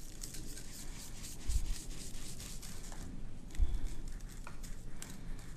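Shaker of adobo seasoning shaken over a brisket in a foil pan: quick, dry rattling and spattering of the granules, densest in the first half. Two dull low thumps come about a second and a half in and again near the middle.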